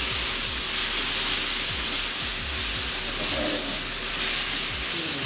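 Onion-tomato masala frying in oil in a large kadai, a steady sizzle as ground chili-coriander powder is stirred in with a metal spatula, with occasional light scrapes of the spatula on the pan.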